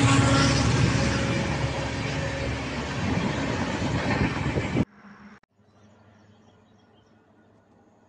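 Diesel-hauled passenger train passing close at speed: loud rushing rail noise from the coaches going by, with a low engine hum fading over the first couple of seconds. It cuts off suddenly about five seconds in, leaving only faint quiet background.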